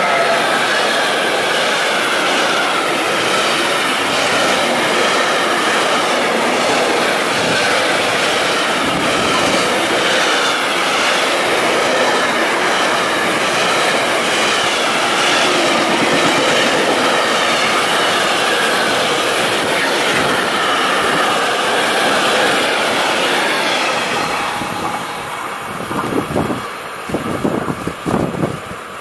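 Long intermodal freight train of tank-container wagons passing close at speed: a steady rush of steel wheels on rail with rhythmic clacking as wagon after wagon goes by, and a thin, wavering high ringing from the wheels. The noise dies away near the end as the last wagons pull off into the distance.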